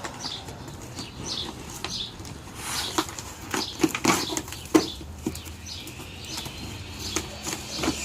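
A stapled cardboard box being opened by hand: irregular rustling and scraping of cardboard and packaging with several sharp clicks, the loudest a little past halfway.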